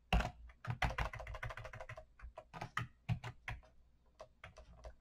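Computer keyboard typing: a run of irregular keystroke clicks, quick and close together at first, then sparser after about two seconds.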